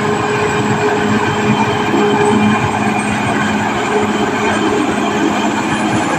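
Caterpillar D6R XL bulldozer at work: its diesel engine runs steadily under load, mixed with the running noise of its steel tracks.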